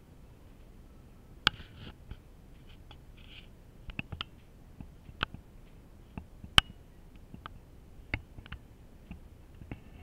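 Irregular sharp clicks and taps with brief rustling, as fingers handle the camera body close to its built-in microphone.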